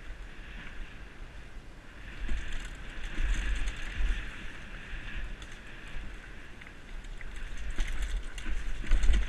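Canyon Torque FRX freeride mountain bike rolling fast down a dirt forest trail: tyres on dirt, chain and frame rattling with sharp clicks over bumps, and wind buffeting the helmet-mounted camera. It gets louder around two to four seconds in and again near the end.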